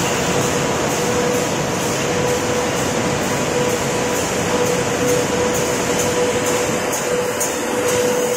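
Corrugated box turn conveyor prefeeder machine running steadily: a continuous mechanical hum with a steady whine, and faint regular ticking at about two or three a second.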